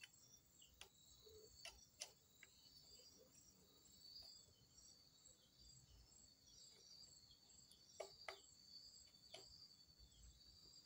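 Near silence: a few faint clicks from a screwdriver turning the screw that holds the sewing machine's add-on motor, over a steady faint high-pitched background drone.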